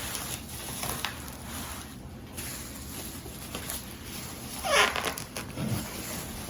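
Plastic wrapping rustling and crinkling as a typewriter is worked out of it, with a brief squeak of the plastic just before five seconds in, the loudest moment.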